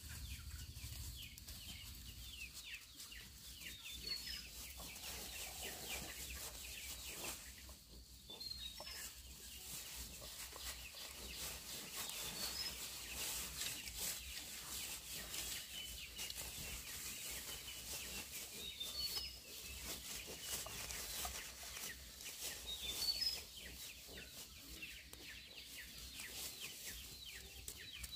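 Chickens clucking, with short high chirps every few seconds over a faint rustling hiss.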